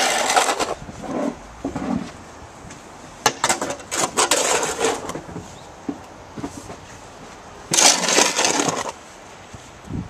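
Snow shovel scraping through snow on the pavement in three strokes of about a second each, a few seconds apart.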